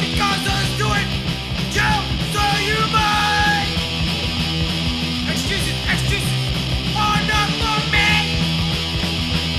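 New York hardcore punk song: fast distorted electric guitars, bass and drums with shouted vocals.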